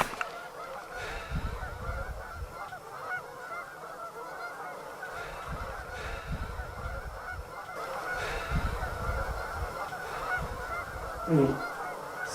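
A large flock of geese, with ducks among them, calling continuously in a dense, overlapping clamor. A brief low falling sound stands out near the end.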